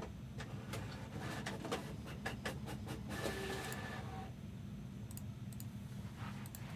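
Small printer printing: a run of clicks and a short whirring burst about three seconds in, over a steady low hum.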